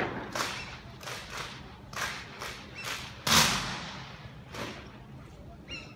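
Silent rifle drill: a string of sharp, separate slaps and thumps as a drill platoon strikes and handles its rifles in unison, the loudest impact about three seconds in.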